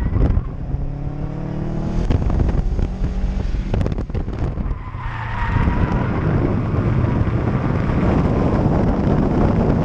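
Subaru WRX's turbocharged flat-four engine revving up under hard acceleration, its pitch rising over the first few seconds, then a short tyre squeal about five seconds in. After that a heavy rush of wind and road noise covers the engine, heard through a microphone mounted outside the car.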